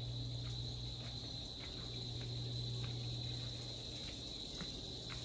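Steady high-pitched drone of insects, with faint regular footsteps on a paved path.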